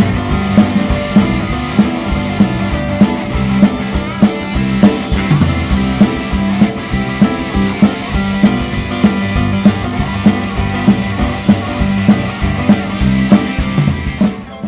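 Live rock and roll band playing an instrumental break: electric guitar over a drum kit keeping a steady beat. The playing drops off briefly near the end.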